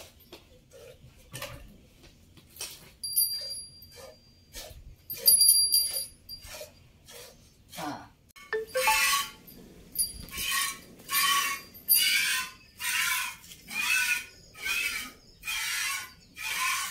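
Cow being hand-milked: streams of milk squirting from the teats into a steel pot. The squirts are quiet and quick in the first half, then become louder hissing squirts, a little more than one a second, from about halfway through.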